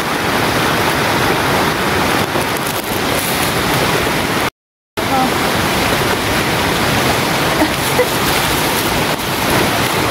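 A steady, even rushing noise like running water, broken by a split-second cut to silence about halfway through.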